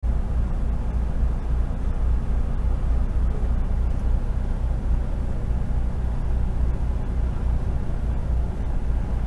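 Vehicle engine running low and steady as it creeps slowly along, heard from inside the cab as a deep, even drone.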